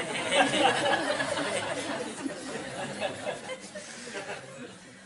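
Audience laughing and murmuring after a joke, the laughter slowly dying away.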